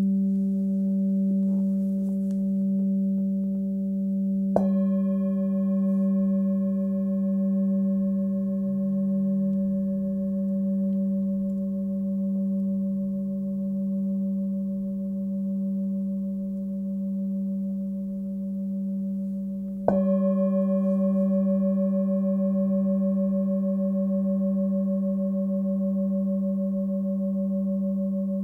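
An 18.5 cm Nepalese singing bowl, pitched at about 194 Hz (G), rings with a steady, slowly pulsing deep hum. It is struck twice, about four and a half seconds in and again about twenty seconds in, and each strike brings out its higher overtones afresh.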